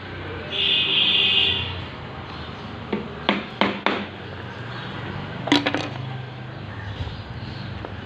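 A crow cawing for about a second, starting half a second in. A few short sharp knocks follow around three to four seconds in and again near five and a half seconds, over a steady low background hum.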